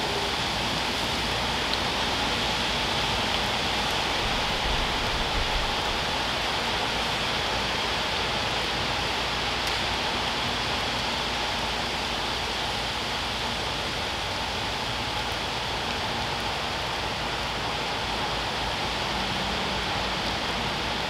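Steady rain falling on a wet paved driveway and lawn, an even hiss with no change in strength.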